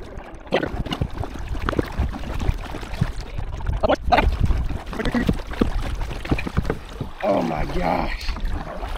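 Kayak being paddled across a lake: paddle strokes and water splashing and lapping against the hull, over a steady low rumble of wind on the microphone.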